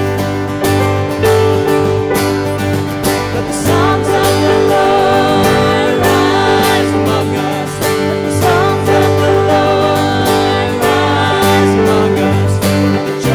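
Live worship band playing a contemporary worship song: singers' voices over acoustic and electric guitars, keyboard, held bass notes and a steady drum beat.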